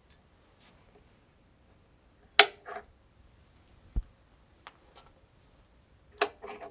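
Metal dies being taken out of the die plate of a Hornady progressive reloading press: scattered sharp metallic clicks and clinks, the loudest about two and a half seconds in, a dull thud at about four seconds, and two more clicks near the end.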